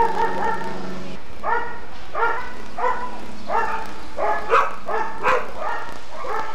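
A dog barking repeatedly, a steady string of short barks roughly one every 0.7 seconds.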